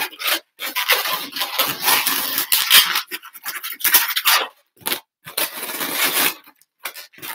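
Inflated latex modelling balloons rubbing against each other and against hands as a balloon octopus is pressed and arranged into shape. A run of scratchy rubbing noises, broken by several short pauses.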